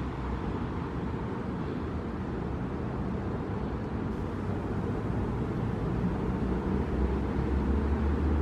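Steady low rumble of street traffic, swelling a little near the end.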